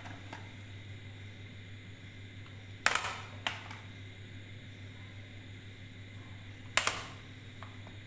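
Plastic audio cassette cases clacking as they are set down and shuffled on a wooden table: two sharp clacks about four seconds apart, with a small click just after the first, over a steady low hum.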